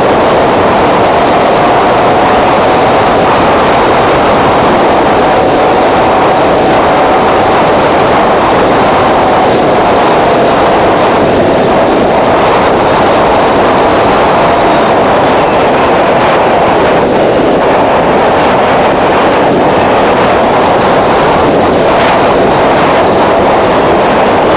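Steady, loud rush of wind noise on a gliding FPV model plane's onboard microphone, the motor throttled back to almost nothing, with a faint whistle that wavers slowly in pitch. The sound is cut off above the middle range, as heard through the FPV video link.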